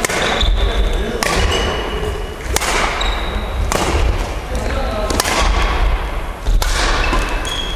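Badminton rally: racket strings hitting a shuttlecock six times, a sharp crack every second or so, echoing in a large gymnasium.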